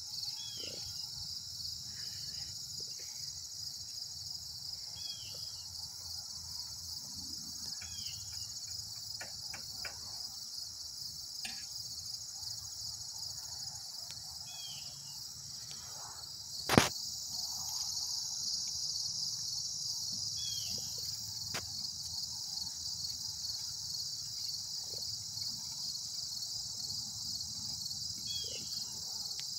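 A steady, high, finely pulsing chorus of insects, crickets or the like, with a short chirp repeating every few seconds and one sharp knock about seventeen seconds in.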